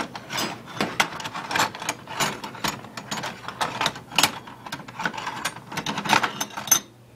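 Flat steel knife blanks clinking and clattering against one another as hands shuffle through a wooden box full of them: many irregular sharp metallic clinks, stopping near the end.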